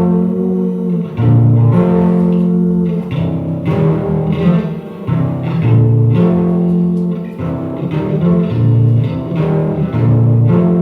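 Instrumental music on guitar and bass guitar, a slow passage of held notes that change about once a second, with no singing.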